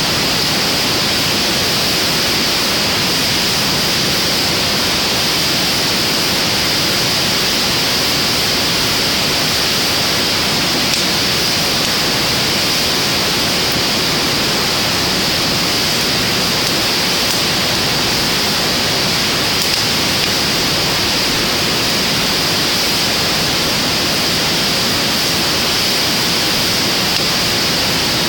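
Steady, even rushing hiss with a few faint crackles now and then from a driftwood fire burning in a stainless-steel fire pit.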